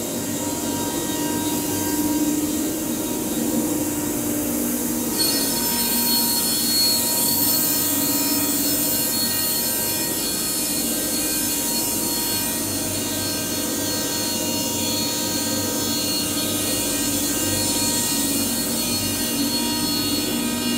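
CNC router spindle running and cutting, a steady high-pitched whine with many steady tones over a hiss of cutting noise. The high hiss grows louder about five seconds in.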